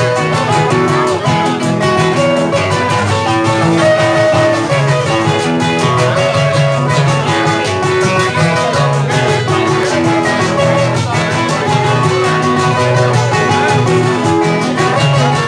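Merengue played live by a guitar trio: acoustic guitars strumming a steady, quick rhythm under picked melody lines.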